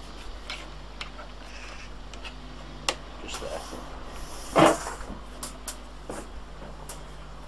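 Handling noise from a countertop electric grill being turned round on a stainless steel table: a few light clicks of plastic, then one short, louder bump about four and a half seconds in as the appliance is set down on the steel.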